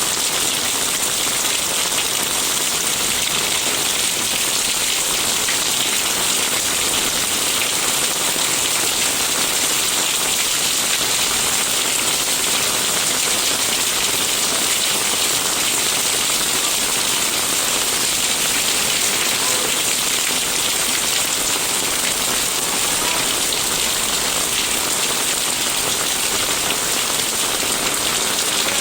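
Steady rain falling: an even, unbroken hiss of rain with no let-up.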